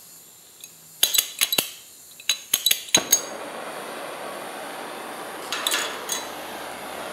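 A wire flint striker is snapped repeatedly against a propane torch nozzle, making a quick series of metallic clicks. About three seconds in the torch lights, and the flame then burns steadily with a hiss.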